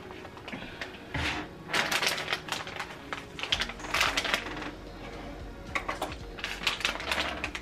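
Frozen smoothie pieces clattering into a plastic blender cup: a quick run of light rattles and clicks that comes and goes. A low steady hum comes in about halfway through.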